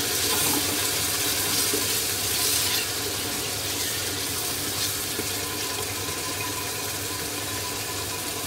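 Raw chicken pieces frying in hot oil with browned onions in an aluminium pressure cooker, a steady sizzle as they are stirred with a spatula. The chicken's own water is cooking off in the oil.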